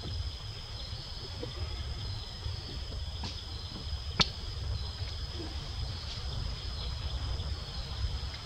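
Steady high-pitched drone of insects in the forest, over a low rumble, with a single sharp click about four seconds in.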